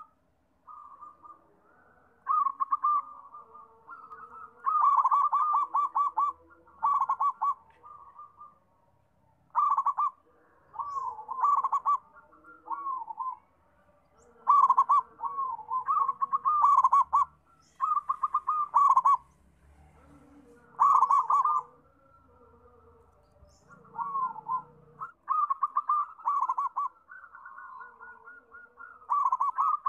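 Zebra dove (perkutut) cooing: repeated phrases of quick, rippling coos with short pauses between them.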